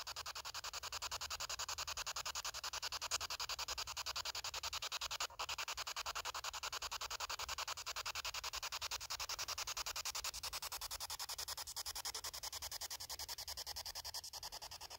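Ghost-box radio scanner sweeping through stations: a steady hiss of static chopped into rapid, even pulses, several a second.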